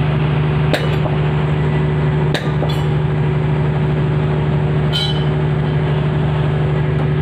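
A machine running with a steady low hum that keeps an even pitch and level, typical of a welding machine or its engine-driven generator. Three sharp clicks land about a second in, about two and a half seconds in and near five seconds in.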